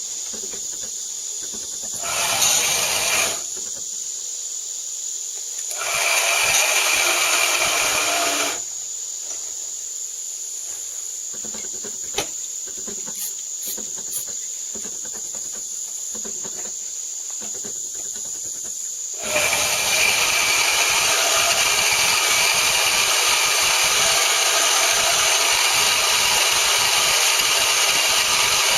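Chicago Electric variable-speed portable band saw running with its blade turned down to a slow speed for cutting metal, which keeps heat from building on the blade. It gets louder in two short spells, about two and six seconds in, and then steadily from about nineteen seconds on.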